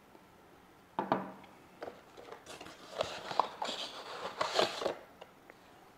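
A small plastic multimeter set down on a wooden tabletop with a sharp knock, then a cardboard box being handled and searched, with rustling and scraping.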